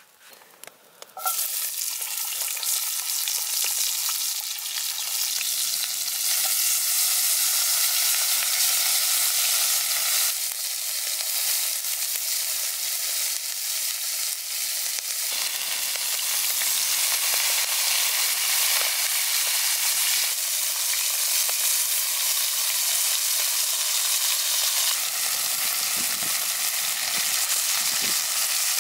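Chopped bell peppers and onion frying in a cast iron skillet: a steady, dense sizzle that starts suddenly about a second in.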